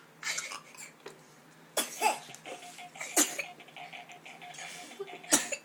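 Three short, sharp sneeze-like bursts from a girl, one about two seconds in, one a second later and one near the end, each falling in pitch, with only faint sound in between.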